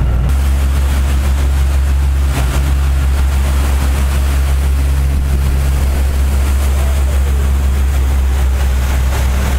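Vehicle engine running at a steady low drone, with a rushing noise of wind or road over it.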